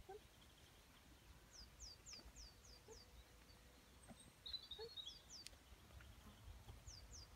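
Faint songbird calls over quiet outdoor background. A run of about six quick, high notes, each sliding downward, comes first, then shorter runs of two or three later, with a brief chirpy twitter between them.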